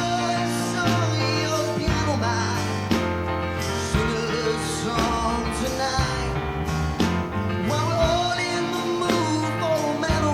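Pop-rock song playing, with a sung melody over a steady bass line and band accompaniment.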